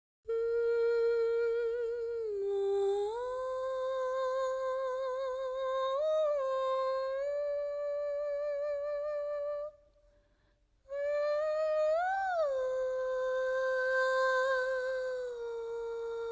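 A voice humming a slow wordless melody in long held notes that glide from one pitch to the next, breaking off for about a second near the middle.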